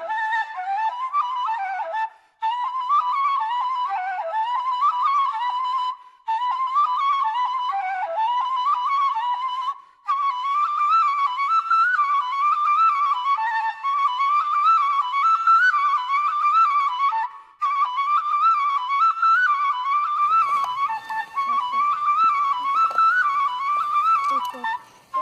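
Background music: a single melody line in a high register, wandering up and down in short phrases with brief pauses between them. Faint low background noise joins it near the end.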